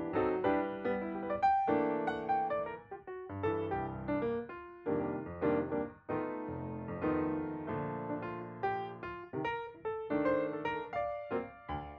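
Background piano music: a gentle run of struck notes that ring and fade.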